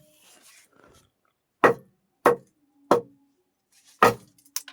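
A foley artist performing sharp impact hits: four loud, short knocks spaced about half a second to a second apart, then a few quick lighter taps near the end.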